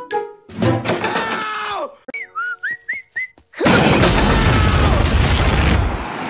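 Cartoon sound effects: a hit with a falling tone, a few quick up-and-down whistles, then a loud explosion about three and a half seconds in that lasts a couple of seconds and fades into falling tones.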